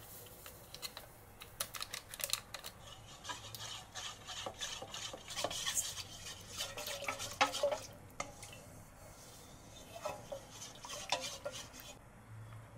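A kitchen utensil stirring and scraping in a bowl, with many quick clinks and a few squeaky scrapes.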